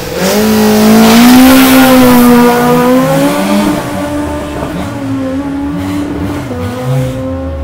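Small Peugeot hatchback race car launching hard from the start line: the engine revs climb sharply with a burst of wheelspin noise. After about three and a half seconds the pitch drops at a gear change, and the engine keeps pulling, quieter as the car moves away.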